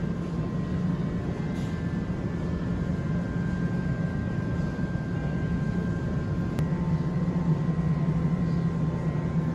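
Steady low hum of a large store's background, with faint high steady tones above it and a faint click about two-thirds of the way through.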